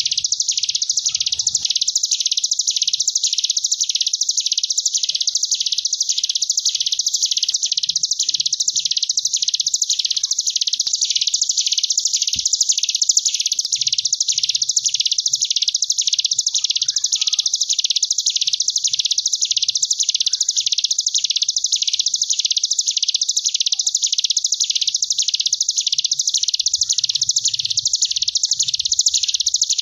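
Ciblek gunung, a small Indonesian prinia, singing its 'ngebren' song: one unbroken high, buzzing trill that swells and fades in even waves, about one and a half a second, like a wasp.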